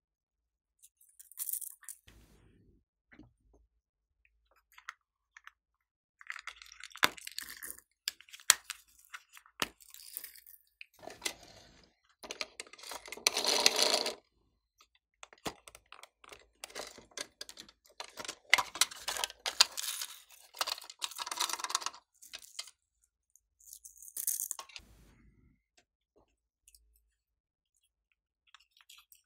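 Small plastic toy cases and confetti being handled by hand: scattered sharp plastic clicks and taps, with stretches of rustling and rattling and short quiet gaps between them.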